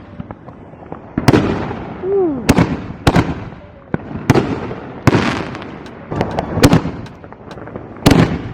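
Consumer fireworks going off in a quick series: about eight sharp bangs, roughly one a second, each trailing off in a fading tail.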